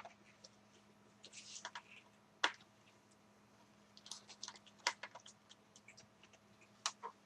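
Small screwdriver working the tiny screws that hold a laptop's wireless card: scattered light clicks and ticks of metal on metal and plastic, with a short scrape about a second in and a few sharper clicks.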